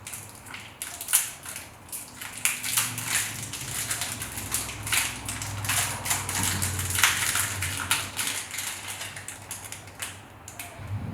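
Irregular crinkling and rustling of a clay bar's plastic wrapping as the clay is unwrapped and worked in the hand, over a faint low hum.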